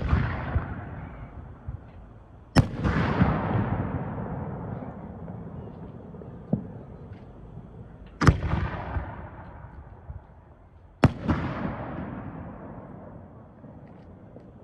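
Fireworks shells bursting overhead: four loud, sharp bangs a few seconds apart, each trailing off slowly over several seconds, with a smaller pop in between.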